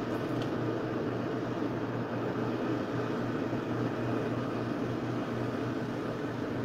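Steady, even background hum with a low drone and no distinct events.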